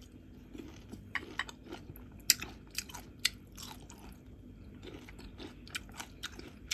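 Chewing and crunching a mouthful of boiled bitter gourd (ampalaya), with many short crisp clicks and mouth sounds scattered throughout.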